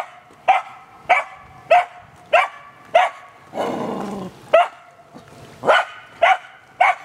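A dog barking over and over in a steady rhythm, a bit under two barks a second, with one longer, drawn-out cry about halfway through.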